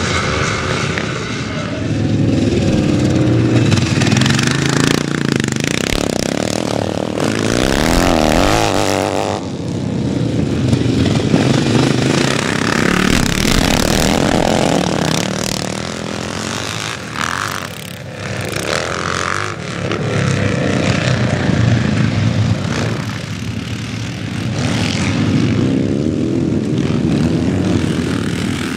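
Vintage motocross motorcycles racing, engines revving hard. The sound swells and fades every few seconds as bikes pass.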